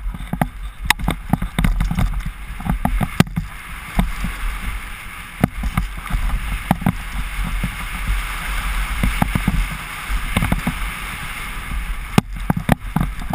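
Downhill mountain bike riding a rough dirt trail, heard from a helmet camera: low wind rumble on the microphone, steady tyre noise on the dirt, and frequent knocks and rattles as the bike goes over bumps.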